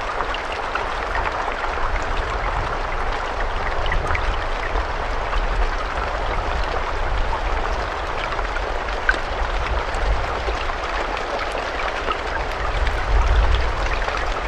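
Steady rain: a constant hiss with individual drops ticking through it, over a low rumble that swells briefly near the end.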